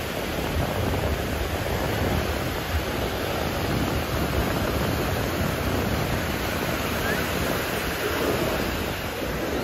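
Ocean surf washing up on the beach: a steady rushing noise with no breaks.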